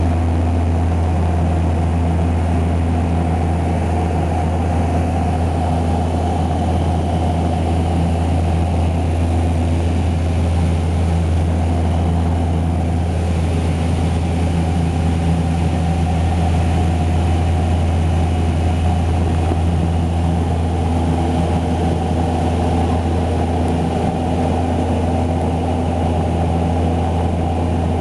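Float plane's engines and propellers droning steadily in flight, heard inside the passenger cabin: a loud, even low hum with a haze of rushing noise over it.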